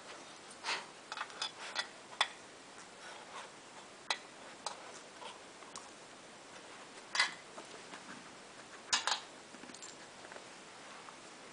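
Irregular light clicks and knocks: a dog nosing and pawing tennis balls in the cups of a metal muffin tin. There are a few clusters, about a second in, around seven seconds and around nine seconds.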